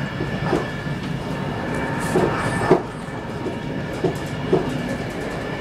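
X10 electric commuter train running, heard from inside the carriage: a steady running noise broken by about four sharp knocks from the wheels on the track, the loudest near the middle.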